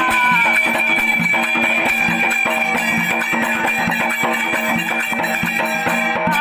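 Instrumental interlude of Marathi folk music: a plucked string instrument playing over steady held tones, with quick, even percussion strokes.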